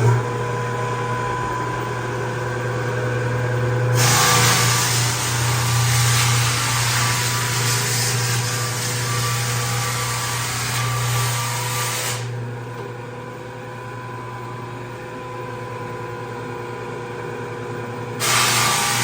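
Floor drum sander running with a steady motor hum. About four seconds in, a loud hiss of the sanding drum grinding off the floor's old finish joins it. The hiss drops away about twelve seconds in and comes back near the end.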